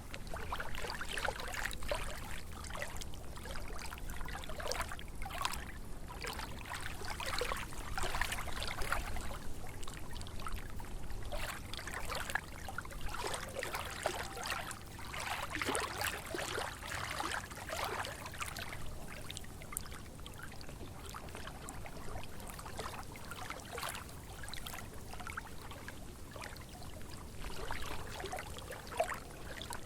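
Small lake waves lapping and splashing in an irregular, ongoing pattern, with a louder spell of splashing about halfway through, over a low steady rumble.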